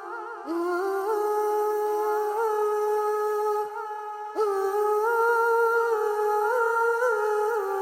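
Wordless vocal background: a voice humming long, held notes with small ornamental turns. It breaks off briefly about half a second in and again around the middle.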